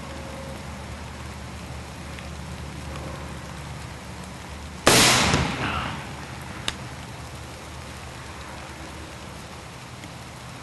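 A single shotgun blast about five seconds in, dying away over about a second, over the steady hiss of rain.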